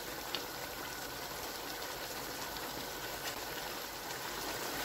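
Chicken curry bubbling in a frying pan over a full flame: a steady soft hiss with faint pops as the released chicken juices cook down.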